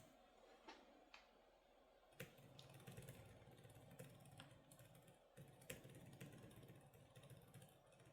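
Faint, scattered key clicks of a laptop keyboard being typed on, with a faint low hum coming in about two seconds in.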